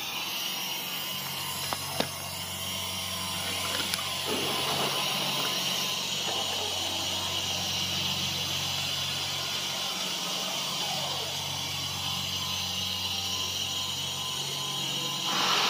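5-axis CNC router's spindle running steadily as its small bit cuts a white foam block, over a steady low hum from the machine's drives, with a few sharp clicks. A brief louder whoosh swells up near the end.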